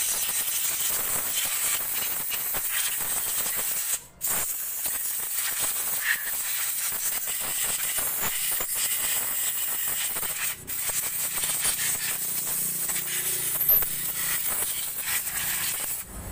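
Compressed air hissing steadily from a blow gun as it blows out a freshly washed motorcycle carburetor, clearing its passages. The hiss cuts off briefly twice, about four and ten and a half seconds in.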